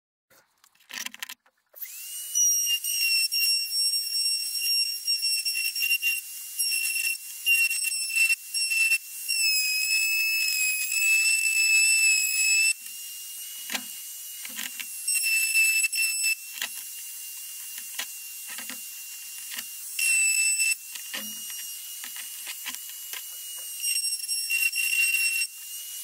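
Flexible-shaft rotary tool running at high speed with a high-pitched whine, its pitch sagging several times as the bit bears on the work while holes are drilled in a wing cover plate for mounting screws. Short knocks of the tool and parts being handled come between.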